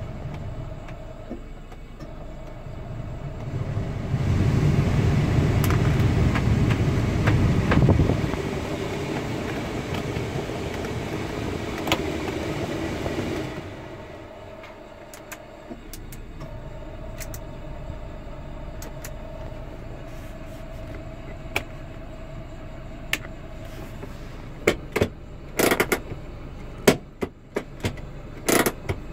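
Daewoo Matiz heater blower turned up to a loud, steady rush of air from about four seconds in, then switched off suddenly about halfway through, over the car's idle hum. Near the end come a few sharp clicks from the handbrake lever being worked.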